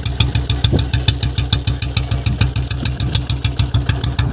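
A 2018 Royal Enfield Bullet's single-cylinder engine idling, with a steady, even beat of about seven pulses a second.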